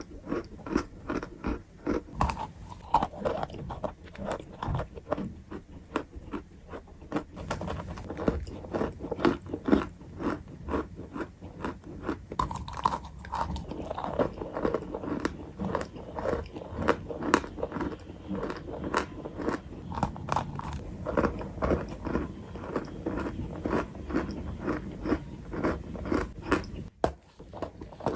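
Close-miked crunching and chewing of crunchy ball-shaped snacks: rapid, dense crisp crunches that go on without a break, pausing briefly near the end.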